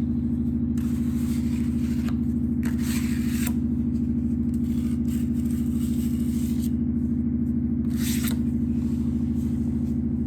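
Washing machine on its spin cycle, giving a steady low hum throughout. Over the hum come a few short scrapes of a knife spreading joint compound (mud) on a wall: one about a second in, one near three seconds and one near eight seconds.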